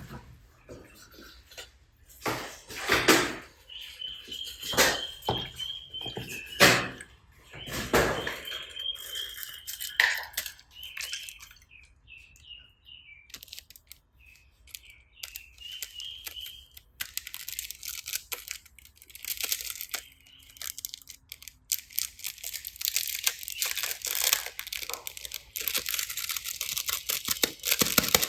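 Slime being squeezed and mixed by hand: a series of squelching presses, then dense crackling and crunching in the second half as the mixed-in pieces are worked through it. Short high chirps come and go over the middle part.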